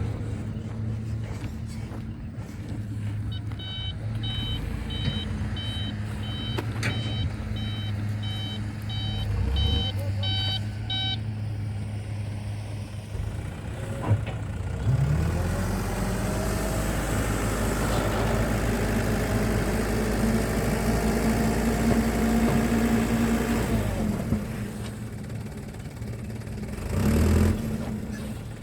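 Heavy diesel engines of an excavator and dump truck running, with a truck's reversing alarm beeping, about two beeps a second, for several seconds early on. About halfway through, an engine revs up and holds a higher pitch for around nine seconds before dropping back. It revs briefly again near the end.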